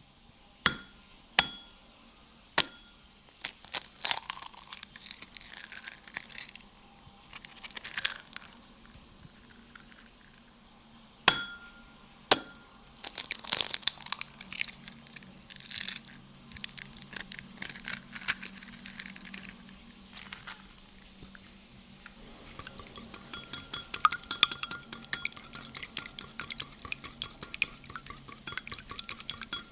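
Eggs being prepared for scrambling in a bowl: a few sharp taps on the bowl that ring briefly, with clinking and splashing as the eggs go in, then a fork beating them with rapid, even clicks against the bowl for the last several seconds.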